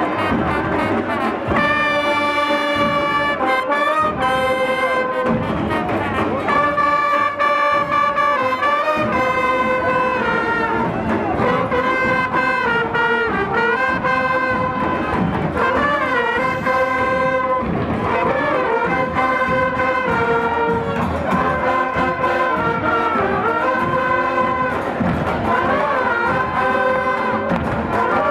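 Brass band music: trumpets and trombones playing a melody of held notes that step up and down, without a break.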